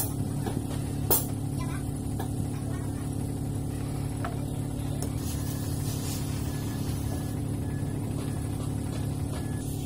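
Dump truck's diesel engine idling steadily, with a sharp click about a second in.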